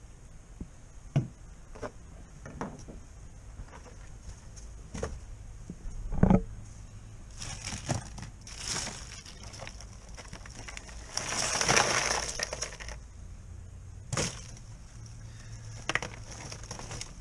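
Ice cubes crunching and clinking in a cooler as fish are moved around and lifted out of the ice, with scattered clicks and a heavier thump about six seconds in. A longer rattle of shifting ice comes a little past the middle.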